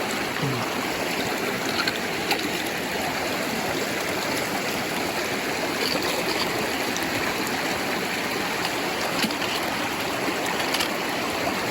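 Creek water rushing steadily, with a few faint clicks heard over it.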